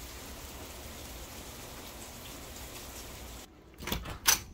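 Steady rain-like hiss that cuts off about three and a half seconds in, followed by two sharp clicks near the end.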